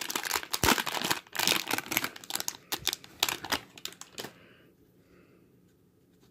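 Foil wrapper of a baseball card pack crinkling and tearing as the pack is opened and the cards pulled out, in quick rustling bursts that stop about four seconds in.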